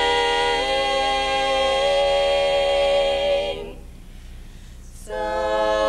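An a cappella vocal group sings in close harmony and holds a chord on "beyond the rain", cutting off about three and a half seconds in. After a short breath they come back in together on a new chord near the end.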